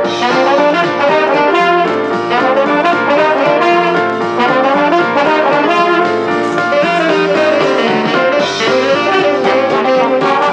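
Jazz music with brass instruments playing a moving melody.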